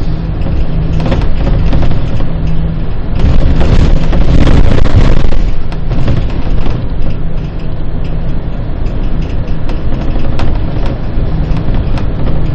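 Bus in motion: a steady diesel engine drone under loud road rumble, with frequent short knocks and rattles.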